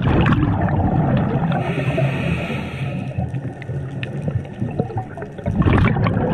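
Underwater water noise, a dense gurgling rush against the camera as the diver swims toward the surface, with scattered small clicks and knocks of gear. The rush swells louder near the end.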